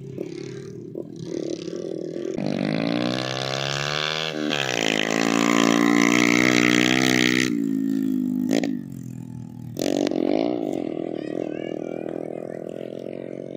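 Trail-bike motorcycle engines running and revving, the pitch rising and falling. The loudest stretch, in the middle, stops abruptly about seven and a half seconds in, and an engine starts up again a couple of seconds later.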